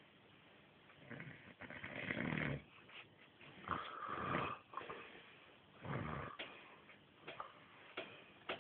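Snoring in three long breaths, about one, three and a half and six seconds in, the middle one carrying a whistle; a few short clicks follow near the end.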